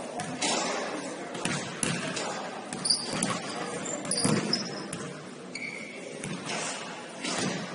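Basketball game play in a large gym: a basketball bouncing on the court with scattered thuds, and short high squeaks of sneakers on the floor.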